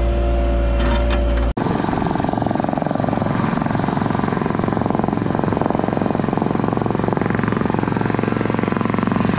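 A Cat 303.5 mini excavator's diesel engine running steadily, then, after a cut about a second and a half in, a trench rammer (jumping jack compactor) running with a rapid pounding as it compacts the bottom of a trench.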